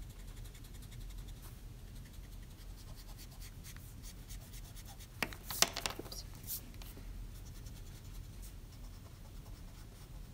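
Pencil-top eraser rubbing back and forth on drawing paper to erase pencil guide lines, in faint short strokes with a louder patch of scraping a little past halfway.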